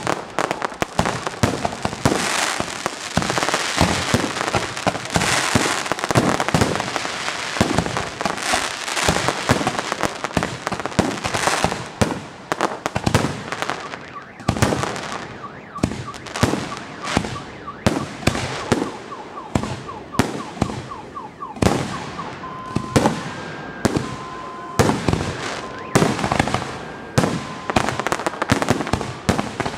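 Fireworks display going off: a dense run of bangs and crackles, thinning to separate bangs after about twelve seconds. An alternating two-note tone sounds among the bangs in the last third.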